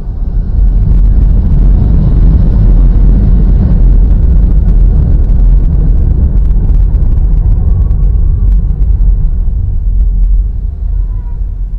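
Ryanair Boeing 737-800's twin CFM56 jet engines at takeoff power, a very loud deep rumble that builds in the first second and holds. It fades near the end as the aircraft rolls away.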